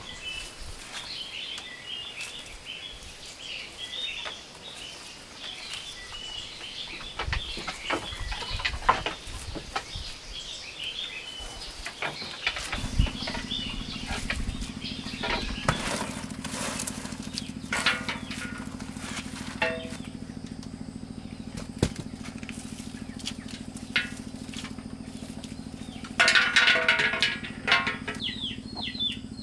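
Small birds chirping, with scattered knocks and clicks. About halfway through, a steady low engine hum starts and keeps going. Near the end there is a short, loud burst of sound, followed by quick falling bird chirps.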